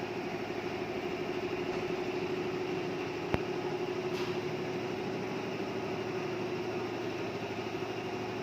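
Luxiang computer embroidery machine running and stitching: a steady mechanical hum with a fast, even pulsing, and one sharp click a little over three seconds in.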